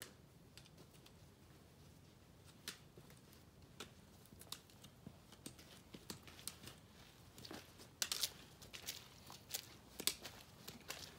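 Footsteps crunching on a snow-dusted trail, with the clicks of trekking-pole tips. They are faint and irregular at first and grow louder and more frequent over the last few seconds as the hikers come nearer.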